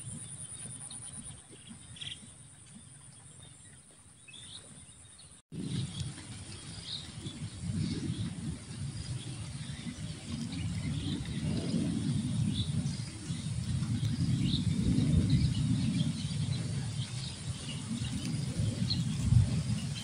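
Small birds chirping now and then over a low, uneven rustling and crunching that starts about five seconds in and grows louder: a water buffalo grazing, tearing and chewing rice stubble.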